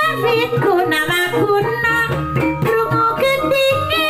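Javanese gamelan ensemble playing: bronze bonang kettle gongs struck in a quick pattern of ringing notes over kendang drum strokes and a low gong hum.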